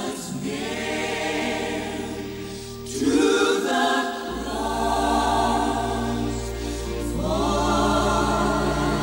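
Gospel choir singing long sustained chords as a song's introduction. The chord changes about three seconds in and again about seven seconds in, and a low bass note enters just after four seconds.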